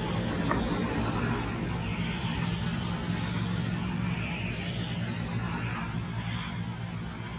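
Steady low engine drone, running evenly throughout, with a few faint higher-pitched sounds coming and going over it.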